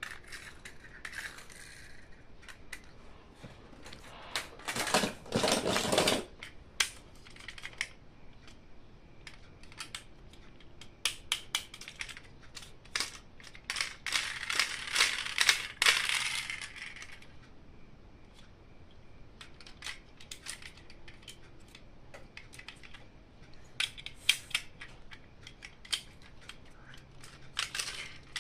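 Hands unboxing and handling plastic toys: two stretches of packaging rustling and crinkling, about five and fifteen seconds in, with small plastic clicks and taps between them and a quick run of clicks near the end.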